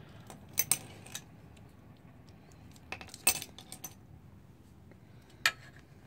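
Small metallic clicks and clinks as a loose mounting bolt and the finned regulator/rectifier are handled against the scooter's steel frame: a few scattered sharp taps, a cluster of them about three seconds in, and one more near the end.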